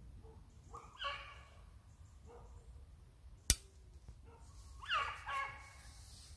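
Petits bassets griffons vendéens giving tongue on a rabbit in the brush: a bout of high yelping bays about a second in and again near the end, with fainter barks between. A single sharp click midway is the loudest sound.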